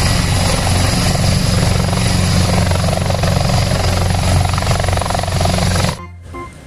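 Military transport helicopter hovering close to the ground: loud, steady rotor and turbine noise with the fast chop of the blades. It cuts off suddenly near the end.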